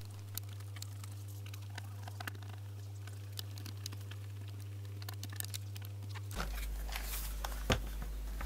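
Small clicks and taps of hands handling a portable cassette recorder's metal cover and tightening its cover screw with a screwdriver, with one sharper click about three-quarters of the way through.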